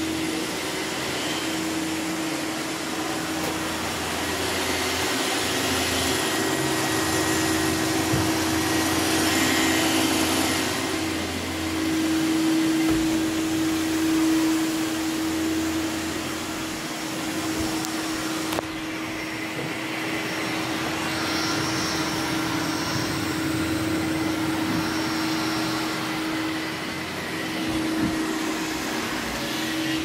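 iRobot Roomba 620 robot vacuum running: a steady motor and brush hum with a constant mid-pitched whine. The higher hiss drops back suddenly about two-thirds of the way through.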